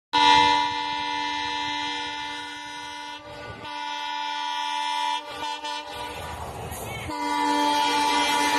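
Multi-tone air horn of a WDP4D diesel locomotive, sounding long steady blasts as the train approaches. There is one blast of about three seconds, then a second after a short break, then a few short toots. A rush of train noise follows, and another long blast starts about seven seconds in.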